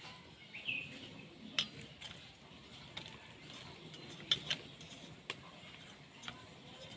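Hands mixing pieces of rui fish with salt and turmeric in a dish: soft, faint handling noise with a few sharp clinks against the dish.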